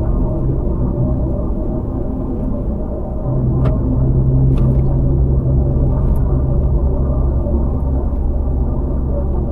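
Land Rover Freelander driving: a steady low engine and road rumble, with the engine note growing a little stronger about three seconds in. A few faint clicks.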